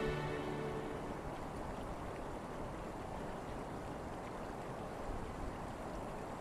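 A held music chord fades out in the first second, then the steady rushing of a mountain stream.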